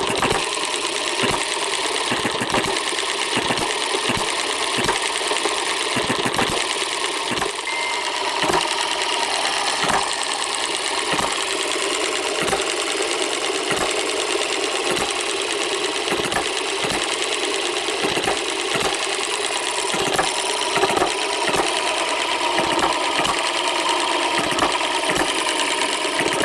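Microcosm M90 model hit-and-miss engine running slowly on softer governor springs. Its firing strokes thump about once or twice a second at uneven intervals over a continuous mechanical clatter. The owner is unsure whether the looser springs now let it run too slow.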